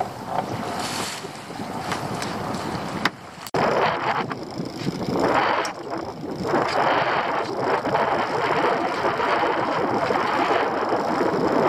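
Wind buffeting the microphone over the sea noise of a small open boat, with a sharp knock about three seconds in; after that the noise is louder.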